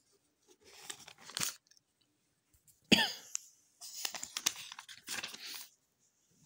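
Paper pages of a book rustling as they are turned over by hand, in several bursts, with a short sharp sound about three seconds in as the loudest moment.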